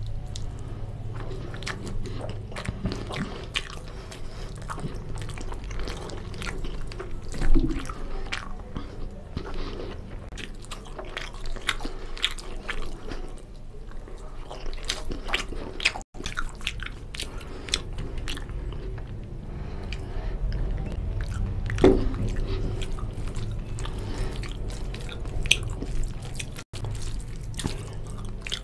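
Close-miked eating sounds: chewing mutton curry and rice with wet, smacking mouth noises and many small clicks, along with fingers mixing rice and curry gravy on the plate. The sound cuts out for an instant twice.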